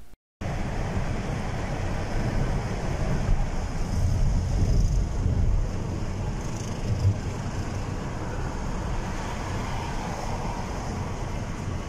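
Steady road and engine noise of a car driving along a city road, a low rumble that cuts in about half a second in.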